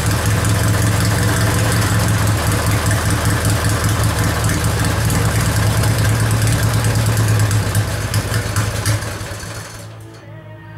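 Briggs & Stratton 16 hp opposed-twin engine of a racing lawn mower idling steadily through a custom 2.5-inch exhaust with a chrome tip. About nine seconds in the engine sound dies away.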